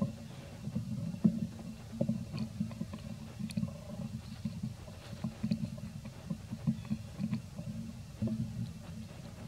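Wind buffeting the microphone: a low, uneven rumble that pulses and thuds irregularly, with a few faint high ticks now and then.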